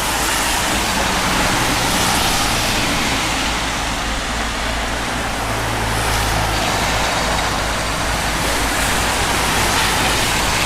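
Steady motor vehicle engine hum under a dense hiss, with the low hum shifting slightly about halfway through.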